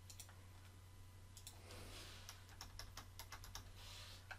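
Faint clicks of a computer keyboard being typed on, a quick run of keystrokes in the middle, over a steady low hum.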